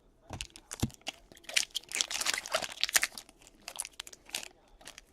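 Foil wrapper of a trading card pack crinkling and crackling as it is torn open and handled, densest about halfway through.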